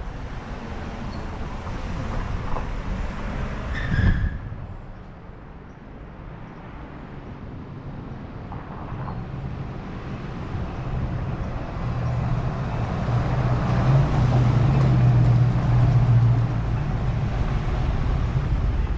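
Road traffic: motor vehicles running past with a steady low rumble. There is a brief high-pitched tone about four seconds in, and a low engine hum that builds through the second half.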